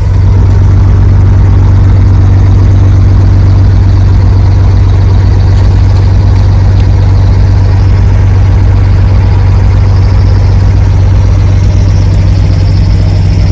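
Heavy diesel equipment engine running steadily and loud, heard close up, with a constant low hum that does not change.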